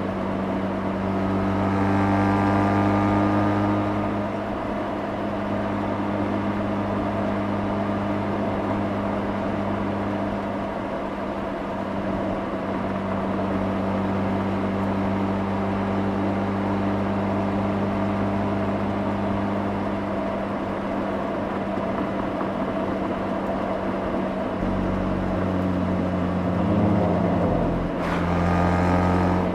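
Mazda RX-8's two-rotor rotary engine heard at the exhaust while driving, running at a steady cruise with a short rise in revs about two seconds in and another rise near the end.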